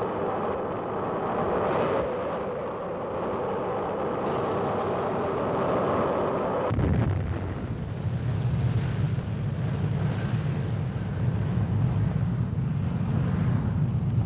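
Nike anti-aircraft missile launch: a steady rushing rocket roar on an old film soundtrack, which about seven seconds in switches abruptly to a deep, low rumbling blast as the missile strikes its target aircraft.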